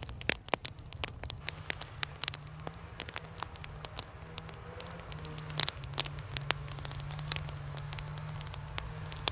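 Campfire of dry sticks crackling, with sharp snaps and pops at irregular intervals over a steady low rumble.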